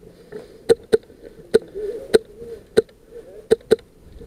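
VFC SCAR-L airsoft electric rifle firing single shots: about seven sharp cracks at irregular intervals, some in quick pairs.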